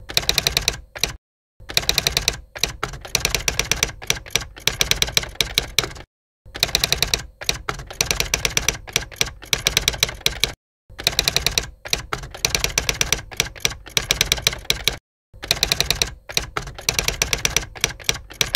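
Rapid, dense clicking, like fast typing, in runs of about four seconds separated by brief silent pauses. A short run comes first, then four long ones.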